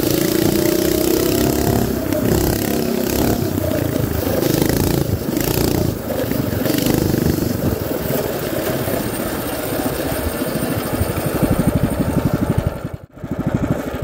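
Mini bike's DuroMax 7HP 212cc single-cylinder engine running under way, its revs rising and falling. It then slows toward idle near the end, with the separate firing pulses audible, and drops out for an instant just before the end.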